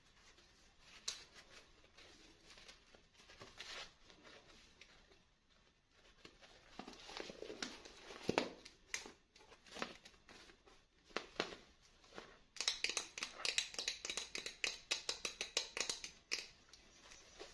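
Hands unwrapping and tearing open plastic and paper packaging, with scattered crinkles and rustles. Near the end comes a fast run of sharp crackling clicks lasting about four seconds.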